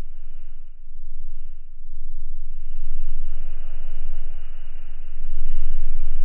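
Low rumble and hiss inside a moving gondola cable car cabin, swelling louder about three seconds in and again near the end.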